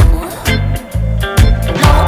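Background music with a steady beat: a funky track with bass, drums and guitar.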